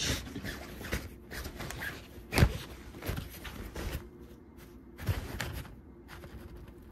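Fabric cat play tunnel rustling in irregular scuffs as a kitten rolls and scrabbles inside it. The loudest scuff comes about two and a half seconds in.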